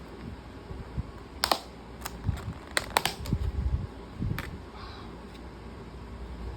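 Plastic food packaging being handled and opened: a handful of sharp clicks, about five in three seconds, with a few soft knocks.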